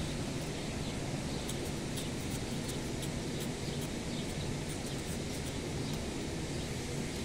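Knife blade scraping the bared wood of a girdled mango branch, faint irregular scratches over a steady background hiss. This is the step of air layering where the remaining sap is scraped off the ring so that the branch will root.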